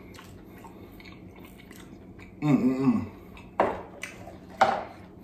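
Close-up eating sounds of a man eating clams: soft chewing and small mouth clicks, a brief hum about halfway through, then two short, sharp mouth smacks about a second apart near the end.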